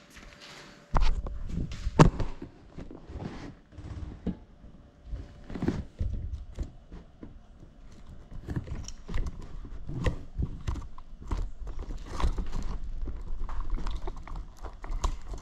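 Irregular knocks and dull thuds on a wooden floor, picked up by the crashed drone's camera lying on it; they start about a second in, with a sharp knock standing out a second later.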